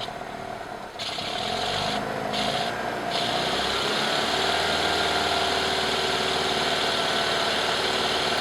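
BMW 2002's four-cylinder engine idling on twin Dellorto DHLA40 carburettors while it warms up, with a steady hiss above the running. It changes abruptly in level a couple of times.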